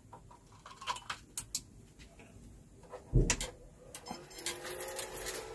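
A few small clicks as an SD card is pushed into the Tronxy 3D printer's mainboard slot, then a heavy thump about three seconds in. Near the end the printer's cooling fans start up, rising in pitch as they spin up, with a steady hiss.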